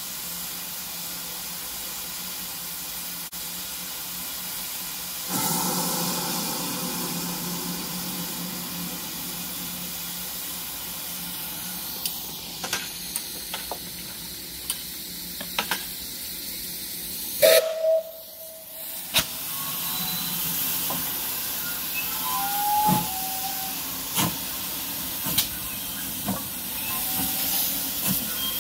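GWR Small Prairie 2-6-2 tank locomotive No. 5526 standing in steam, hissing steadily, with the hiss growing louder about five seconds in. Just past halfway comes a short whistle toot, and scattered metallic clanks follow in the second half as the engine begins to move.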